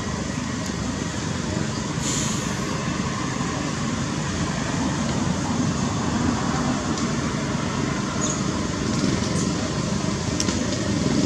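Steady outdoor background noise: a continuous rumble and hiss with a few faint brief clicks, and no monkey calls.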